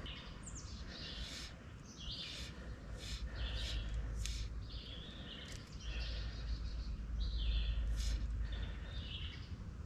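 Wild songbirds singing and calling in many short chirps and trills, over a low rumble that swells in the second half.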